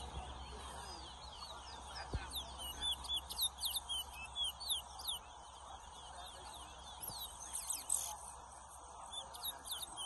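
Caged towa-towa finches (chestnut-bellied seed-finches) singing in a song race: a steady stream of fast, high chirping notes, each dropping quickly in pitch.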